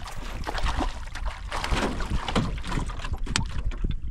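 Wind buffeting the microphone, with small waves slapping and knocking against a canoe's hull in an irregular patter.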